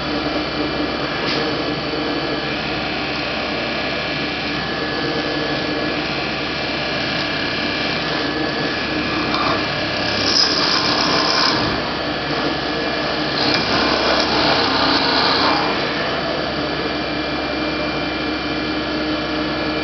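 Bergonzi Synthesis portal milling machine running, its face mill cutting a metal ring: a steady machine whine with several fixed tones, rising to a louder, hissier cut for about two seconds at a time, once about halfway through and again a few seconds later.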